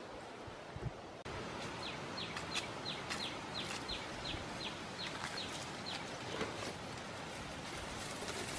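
A bird calling a quick series of short, downward-sliding whistled notes, about three a second for around four seconds, over a steady outdoor hiss with scattered light clicks.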